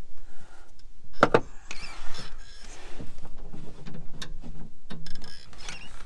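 Long-nose pliers clicking and scraping against metal as the tractor's broken hand throttle cable end is worked free from the throttle linkage under the cab floor. There are a couple of sharp clicks a little over a second in, then scraping and rattling.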